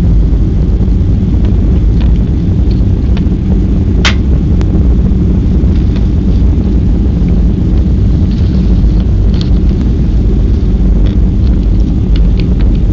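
Steady, loud low rumble inside the cabin of a Boeing 737-300 on landing approach: engine and airflow noise through the fuselage. A few sharp clicks break through, the clearest about four seconds in.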